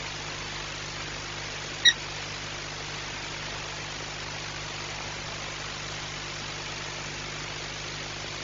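Steady hiss and low hum from a nest-box webcam's microphone, with one short, sharp, high chirp about two seconds in.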